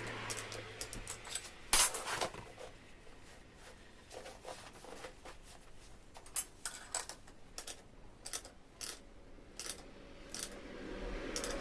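Small metal parts and tools clinking and tapping in short, irregular clicks, with one loud clack about two seconds in.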